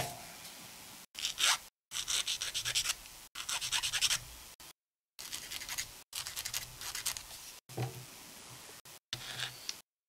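Fingers handling and working small plastic model-kit parts into place: a sharp click at the start, then several short bursts of scratchy rubbing, some with a quick rasping rattle.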